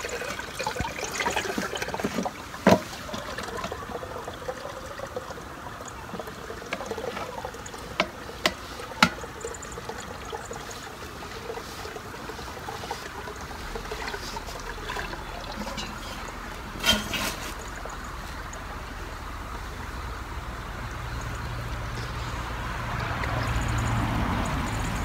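Black walnut dye liquid pouring and trickling out of an enamel pot through a metal strainer into a plastic bucket as the soaked wool yarn is emptied out, loudest in the first couple of seconds. A few sharp knocks come through, one near the start and a cluster about eight to nine seconds in.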